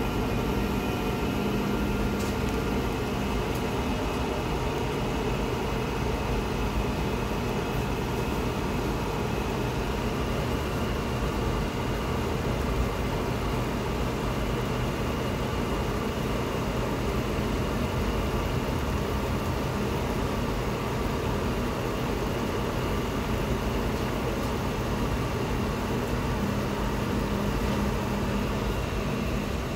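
Automatic instant-ramen cooker running while a bowl of ramen cooks on its induction plate: a steady electrical hum with fan noise.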